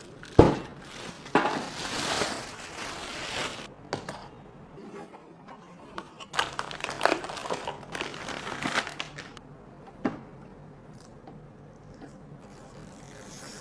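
Packaging crinkling and rustling in two long bursts, with a few short knocks of parts being handled, one just after the start and one about ten seconds in.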